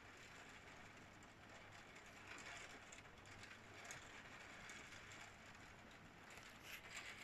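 Heavy rain heard faintly through window glass: a steady hiss with scattered sharp ticks, a cluster of them near the end.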